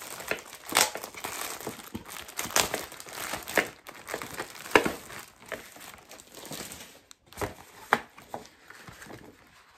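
Clear plastic shrink-wrap on a trading-card pack crinkling as hands pull and work it open: irregular crackling with several sharper, louder snaps.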